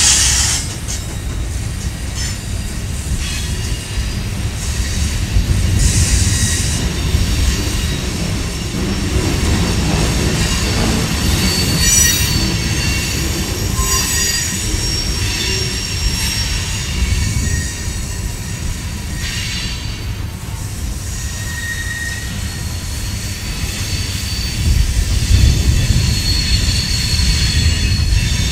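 Empty covered hopper cars of a freight train rolling past: a steady low rumble of steel wheels on the rails, with thin, high wheel squeals coming and going. It grows a little louder near the end.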